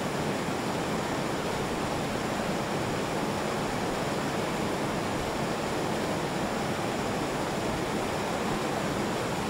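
Steady, even rush of flowing water, a constant noise with no single events in it.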